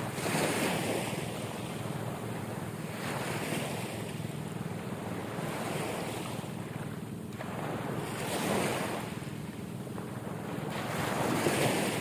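Ocean waves breaking and washing in, swelling into louder surges every few seconds, the strongest about half a second in and near the end, with wind rumbling on the microphone.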